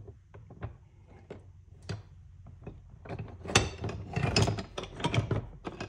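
Rusty metal hand tools being shifted and stacked in a plastic tub of rust-removal soak: scattered clicks at first, then a dense clatter of metal knocking on metal and plastic for about two seconds.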